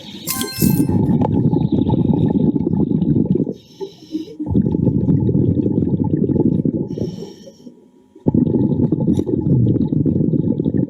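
Diver breathing underwater through a regulator: long stretches of exhaled bubbles rumbling and gurgling, broken twice by a short hiss of inhaled air.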